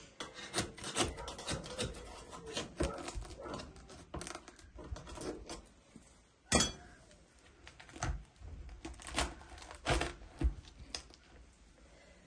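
Irregular knocks, taps and rubbing from hand work with kitchen things, with one louder knock about six and a half seconds in.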